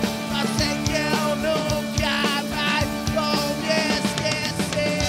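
Rock band playing live: a man singing over electric guitar and a drum kit.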